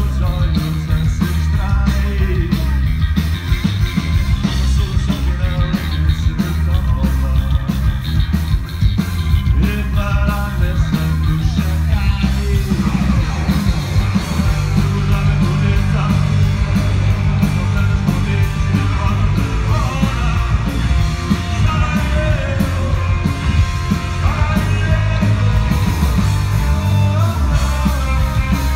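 Rock band playing live at full volume through a large PA, electric guitars over a heavy bass line, heard from within the audience.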